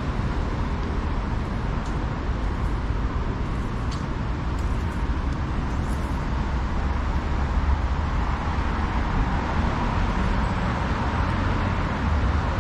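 Steady city traffic noise: cars passing on a multi-lane road, a continuous low rumble.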